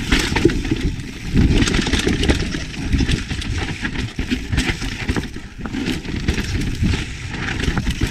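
Yeti SB150 full-suspension mountain bike descending a rocky trail: tyres rolling and crunching over rock under a steady low rumble, with frequent clicks and knocks as the bike rattles over ledges.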